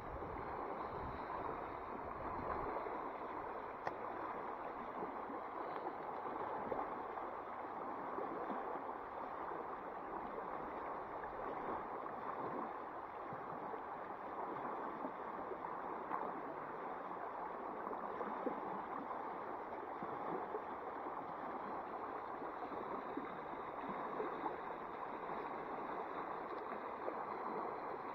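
Creek water flowing steadily over a shallow riffle.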